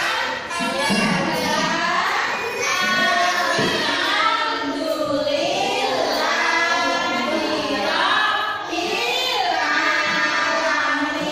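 A group of young children singing a song together, in unison.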